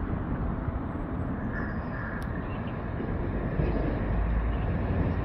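Class 377 electric multiple unit approaching along the line, its running noise a steady low rumble that grows louder from about three and a half seconds in.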